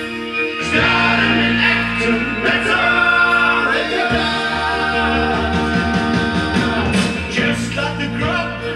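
Music with singing played from a vinyl record on a Dual 521 belt-drive turntable.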